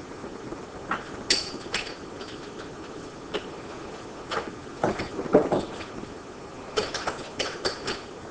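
Scattered small clicks and ticks of metal parts and tools being handled as the bolts of an A-bike's rear chassis crosspiece are refitted, in three loose clusters.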